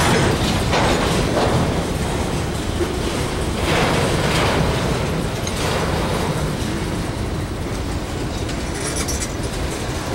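Freight train cars rolling past, their steel wheels clacking over the rail joints, with swells of wheel-on-rail noise several times.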